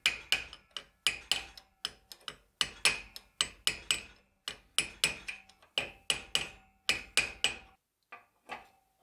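Hammer blows on a turned, anvil-shaped punch set in the hub of a bench-grinder wire wheel, driving its dented inner lip flat: a rapid series of sharp, ringing metal strikes, several a second. The hammering stops near the end, followed by two lighter knocks.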